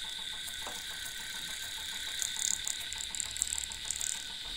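Homebuilt pulse motor's rotor spinning fast, making a rapid, even ticking with a steady high whine over it. A brighter hissing rattle comes in through the middle.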